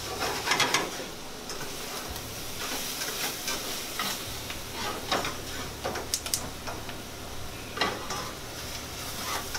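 Chicken frying and sizzling in a pan on a stovetop, with irregular clinks and scrapes of a utensil stirring it against the pan.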